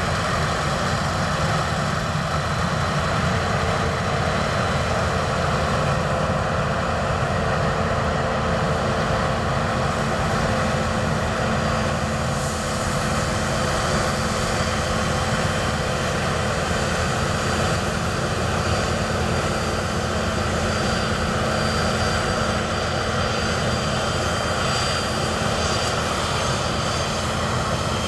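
Claas Lexion 770 combine harvester running steadily under working load as it cuts and threshes wheat: a continuous engine and machinery drone at an even level.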